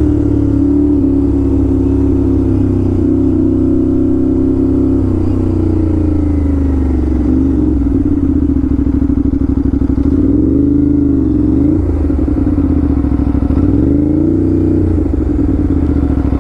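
Aprilia RS 457 motorcycle's parallel-twin engine through an SC-Project exhaust, running steadily under way. Its pitch dips and climbs again a few times as the throttle is eased and reopened.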